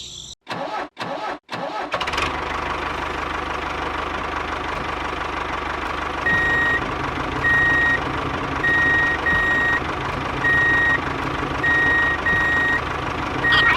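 A vehicle engine runs steadily after a few brief cut-outs in the first two seconds. From about six seconds in, a reversing alarm sounds a string of short, high beeps, each about half a second long.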